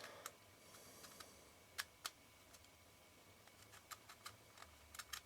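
Mostly near silence with a few faint, sharp clicks and ticks, spaced irregularly, from the metal parts of an Ai-Nikkor 135mm f/2 lens's focusing helicoid being handled while the thread is being started.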